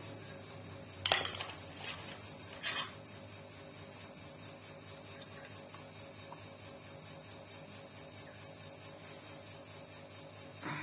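Two brief metallic clinks of tools or small metal parts being handled, about a second and a half apart, the first louder, over a steady low hum.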